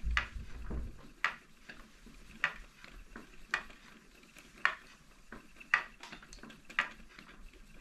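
Spinning wheel turning as alpaca roving is spun into thread, with a sharp click repeating about once a second and fainter ticks between. A brief low rumble at the start.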